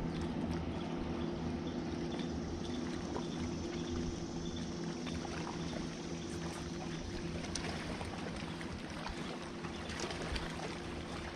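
Water lapping and trickling against a boat hull, over a steady low hum.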